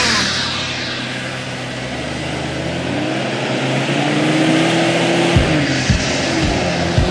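Off-road 4x4 engine running as the vehicle drives across rough ground. Its pitch rises in the middle as it accelerates, then drops, and a few low thumps come near the end.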